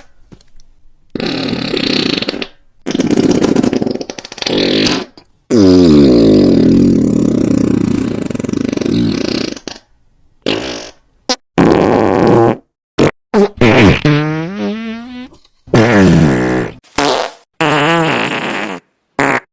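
A string of about a dozen separate fart sound effects, short and long, one after another with brief gaps. About five seconds in comes a long one, some four seconds, that falls in pitch. Later a warbling one wavers up and down, followed by several quick short ones.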